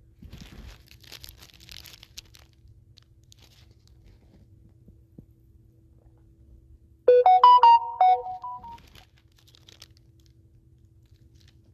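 McDonald's paper sandwich wrapper rustling in the hands for the first couple of seconds. About seven seconds in, a short electronic melody of several quick notes, a phone ringtone or alert tone, sounds for under two seconds and is the loudest sound.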